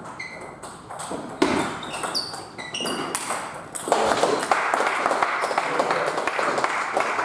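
Table tennis rally: a celluloid-type ball clicking off rubber bats and a Stiga table in quick exchanges, with short ringing pings. From about four seconds in, a denser stretch of noise with many small clicks takes over.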